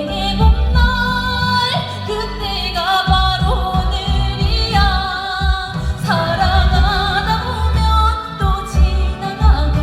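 Female trot singer singing live over a loud backing track with a heavy bass beat, her held notes wavering with vibrato.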